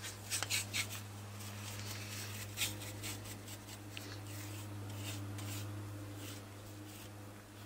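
Bristle brush scratching and swishing in irregular strokes as epoxy is spread over a wooden canoe deck plate and gunwale, over a steady low hum.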